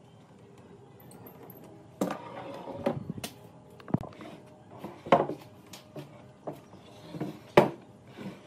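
Irregular clanks and wooden knocks as steel pipe clamps are released and taken off a glued wooden table frame and the frame is handled on a workbench, about six or seven separate hits with the loudest near the end.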